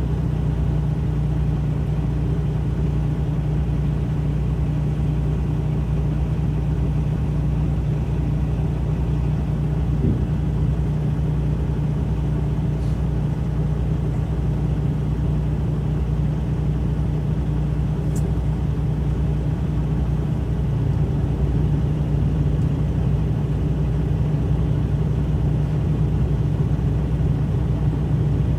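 Diesel engine running at a steady low drone, unchanging throughout, with a few faint ticks.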